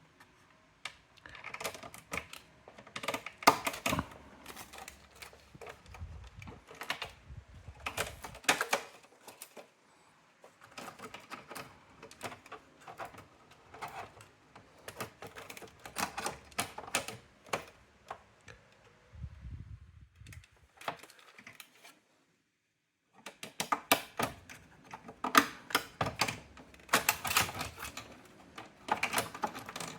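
Irregular clusters of sharp plastic and metal clicks and rattles from a Brother AX-425 electronic typewriter and its parts being handled, with a short dead silence about two-thirds of the way through.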